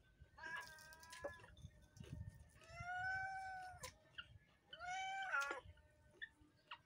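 A domestic cat meowing three times, drawn-out calls that rise and fall in pitch, the middle one the longest, with faint small clicks between them.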